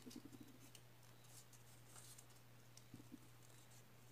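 Near silence: faint rustling and a few soft ticks of a paper strip being rolled tightly around tweezers, mostly just after the start and again around three seconds in, over a low steady hum.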